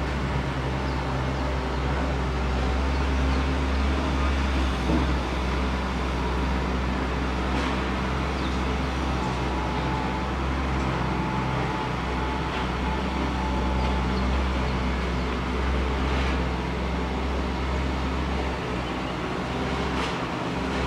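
Distant airport ambience: a steady low rumble with a constant mechanical hum, like engines and ground machinery running far off, and a few faint ticks.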